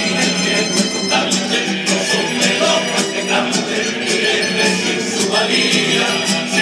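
A Cádiz carnival coro playing a tango live: a band of guitars and bandurrias strumming a brisk, steady rhythm under the men's choir.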